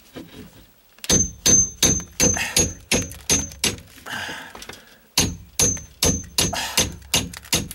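Hammer driving a steel nail puller into a plywood sheet to dig out nails. Two runs of quick blows, about three a second, each with a short high metallic ring.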